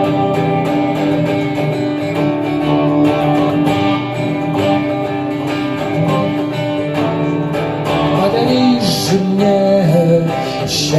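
Guitar playing the instrumental break of a pop song, with steady sustained chords and strumming. A voice comes in over it about eight and a half seconds in, just before the chorus resumes.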